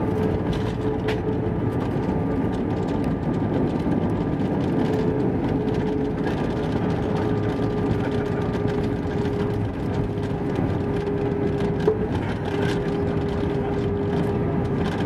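Cabin noise of an Airbus A320 taxiing after landing: a steady rumble from the engines and the ground roll, with a faint steady whine. A single sharp click about twelve seconds in.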